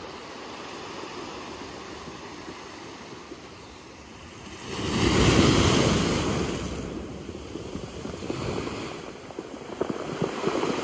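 Ocean waves breaking on a rocky cobble shore: a steady wash, with one bigger wave crashing about five seconds in and fading over the next two seconds, then smaller waves washing in.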